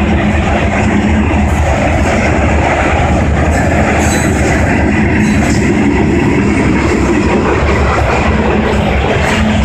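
Freight cars of a Union Pacific mixed train (tank cars and covered hoppers) rolling past close by: a loud, steady noise of steel wheels running on the rails.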